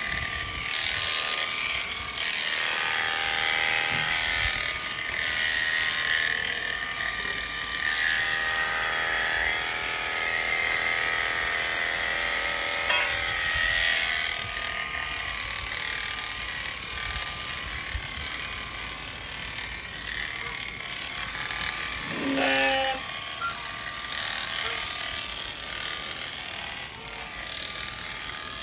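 Premier One electric sheep-shearing clippers running continuously through a ram's fleece, with a steady high whine whose pitch drifts slightly as the cutters work through the wool. A brief lower-pitched sound stands out about 22 seconds in.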